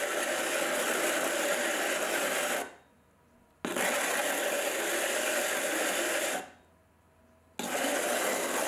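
Porcelain mug base grinding against a wet coarse diamond grinding disc on a spinning pottery wheel: an even grating noise in three stretches, twice fading away for about a second and then starting again abruptly.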